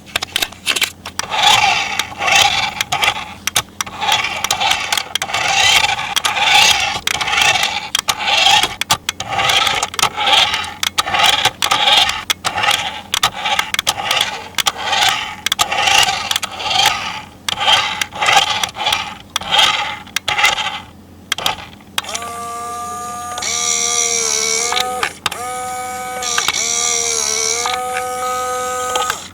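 Plastic toy packaging crinkling and rustling, with dense sharp crackles, for about twenty seconds. From a little past twenty seconds, a toy's electric whirring starts, its pitch stepping up and down in short runs with brief pauses.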